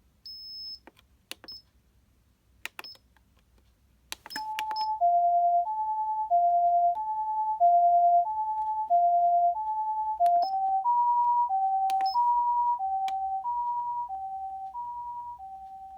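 Osaka Siren OPS-5101V-Q ambulance siren amplifier: a few short high beeps and clicks, then about four seconds in the two-tone ambulance siren starts, alternating a high and a low tone roughly every two-thirds of a second. About ten seconds in, after another beep, the tone pair shifts up in pitch, and the siren grows gradually quieter toward the end.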